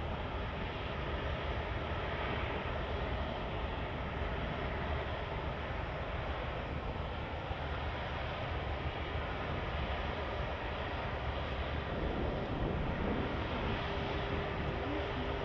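Lufthansa Airbus A380's four Rolls-Royce Trent 900 jet engines running at low thrust as the airliner taxis, a steady, even hum and rush. A steady tone joins in near the end.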